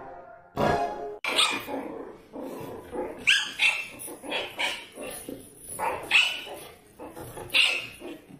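Dog barking: a string of short, sharp barks at irregular gaps, starting about a second in.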